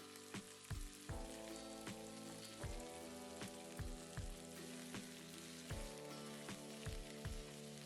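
Chopped onions, tomatoes, garlic, ginger and cashews sizzling as they sauté in hot oil in a pan. Soft background music with held chords and a beat plays over it.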